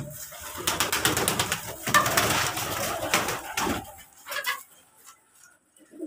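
Domestic pigeons cooing, with a busy rustling and clicking for the first three to four seconds that dies down to a few short sounds near the end.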